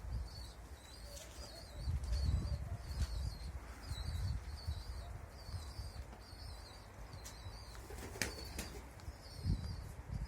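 Gusty wind rumbling on the microphone, with a small bird chirping steadily about twice a second and one sharp click near the end.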